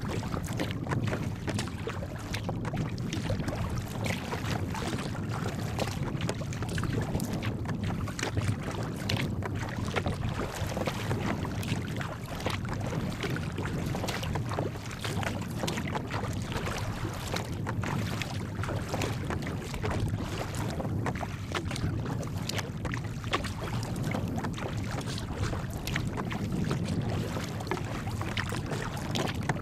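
Sea kayak moving through choppy water: water splashing and slapping irregularly against the hull, over a steady low rumble of wind on the microphone.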